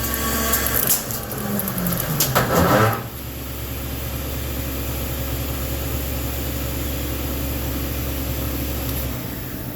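CNC milling machine running with a steady low hum. In the first three seconds there is a louder, busier stretch with clicks and a tone that glides downward, then steady running; the low hum stops near the end.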